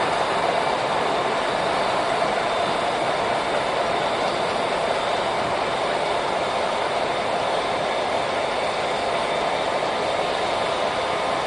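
Utah Railway MK50-3 and SD50 diesel-electric locomotives, EMD 16-645F3B prime movers, running steadily as the coal train passes, with wheel-on-rail noise.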